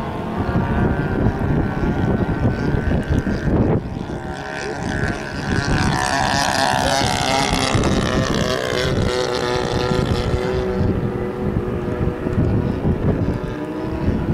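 Super Sport 40S radio-control model airplane's engine running in flight, getting louder with a rising then falling pitch as it passes by in the middle. Wind buffets the microphone throughout.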